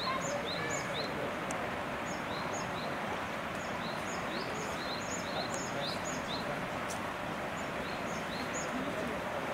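Small birds chirping: short, high, rising calls repeated quickly, several a second, over a steady hiss of outdoor background noise.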